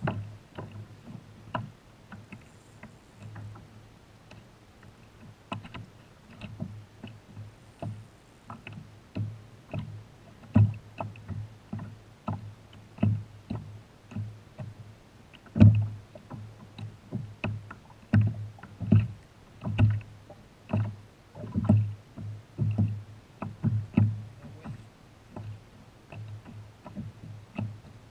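Small waves slapping against a kayak hull: irregular hollow thumps and knocks, one or two a second, some much louder than others, the loudest about halfway through.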